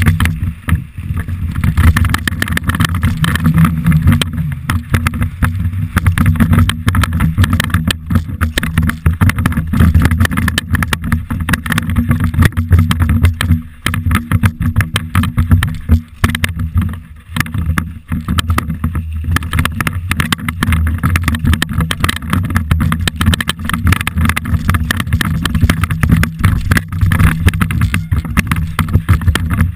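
Wind buffeting a helmet-mounted action camera's microphone over a steady rattle of a downhill mountain bike on a rocky trail, with many small knocks as the tyres and suspension hit stones.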